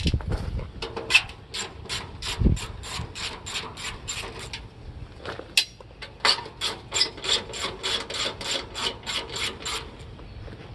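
Hand ratchet wrench with a 5/16 socket clicking steadily, about three to four clicks a second, as screws are backed out of an air conditioner's casing. The clicking comes in two runs with a short pause between, and there is a dull thump a few seconds in.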